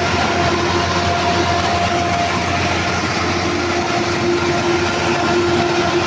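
Perkins 1300 series diesel engine running steadily at a constant speed, a loud dense clatter with a steady hum through it.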